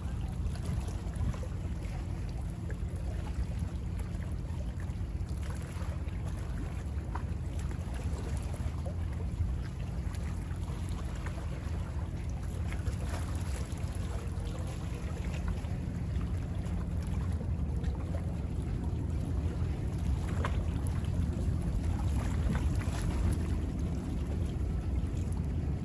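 Small waves of choppy bay water lapping and splashing, with scattered little splashes over a steady low rumble.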